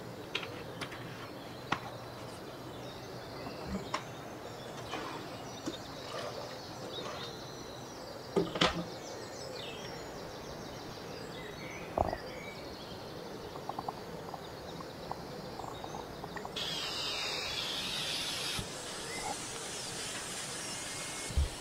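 Kitchen handling sounds over a steady hiss: scattered light clicks and knocks of a plastic oil bottle and a metal pressure cooker and its lid being handled. The loudest is a double knock about eight seconds in, with another knock a few seconds later, and a brighter hiss for a couple of seconds near the end.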